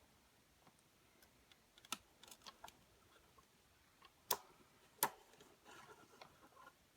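Sharp plastic clicks from handling a hair dryer and its switch buttons: a few light taps, then two loud clicks less than a second apart, followed by light rattling. No motor starts up.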